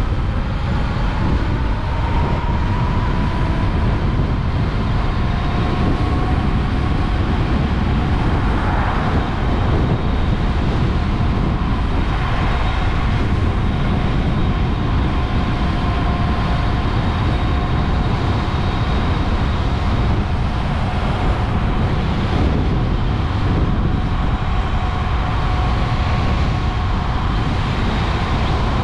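An electric motorcycle being ridden, with heavy wind rush on the microphone and the electric drive's steady two-tone whine, drifting slightly in pitch. It is held to light throttle because the motor or controller cuts out under hard throttle.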